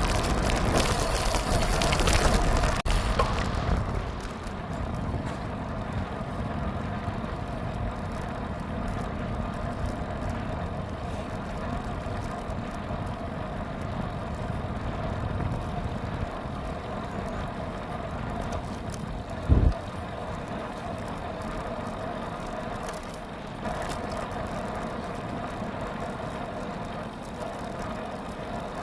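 Steady wind and tyre noise of a bicycle ride on the road, louder for the first four seconds, with a single low thump about twenty seconds in.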